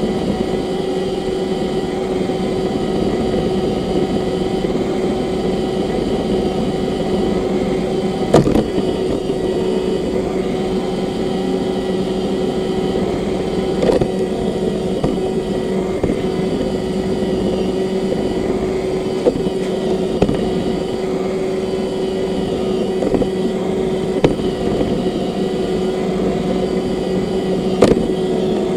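Roomba robot vacuum running, heard from on board: a steady motor and brush hum with a few sharp knocks, about 8, 14 and 28 seconds in.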